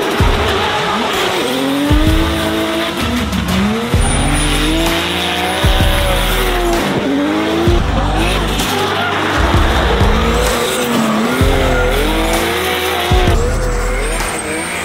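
Nissan S14 drift car's turbocharged 2JZ straight-six revving up and down repeatedly as it drifts, with tyre squeal and hiss from the sliding rear tyres. Background music with a steady low beat plays under it.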